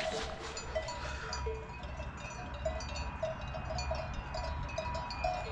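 Cowbells on grazing cattle clanking irregularly, several bells ringing at slightly different pitches.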